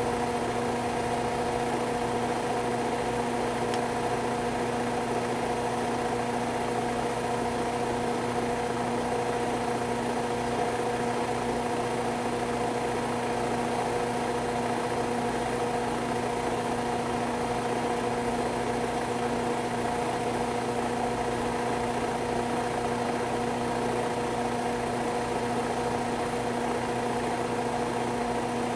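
Steady machine hum: an unchanging low drone with several fixed pitches, running without a break.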